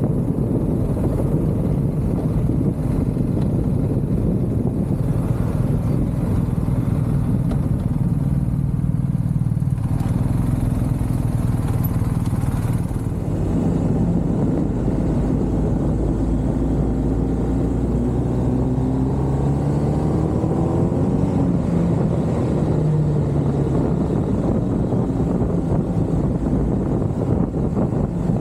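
A motor vehicle's engine running steadily under a low rumble of wind on the microphone, its pitch rising and falling a few times in the second half.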